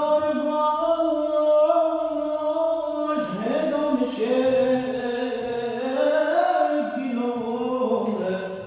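A man singing a Mazandarani folk song unaccompanied, holding long notes that slide from one pitch to the next, with a drop to a lower note about three seconds in.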